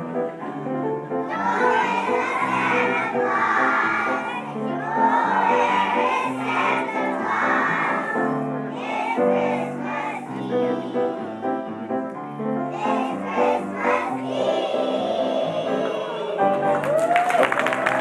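A group of kindergarten children singing a Christmas song together over musical accompaniment. The song ends near the end and applause breaks out.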